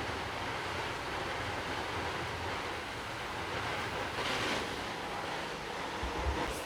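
Steady rushing noise at a large building fire, with a low engine rumble beneath. A louder hiss comes about four seconds in, and a low thump near the end.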